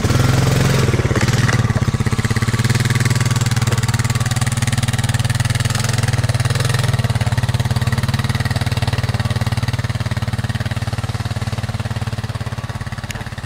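ATV engine running steadily with an even, unchanging pitch, fading a little near the end.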